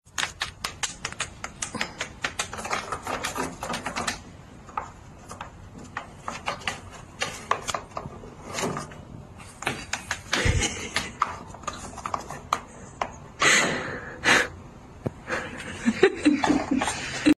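Rapid, irregular clicking and scrabbling as a pet hamster scurries over a hard floor and climbs its cage. The clicks are densest in the first few seconds and sparser after that.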